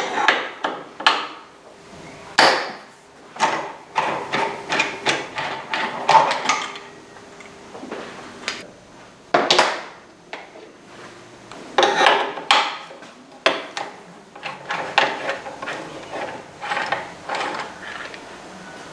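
Irregular knocks, taps and clinks of hand tools and metal parts being worked and handled on the bench. The knocks come in clusters, a few a second, some with a brief ring.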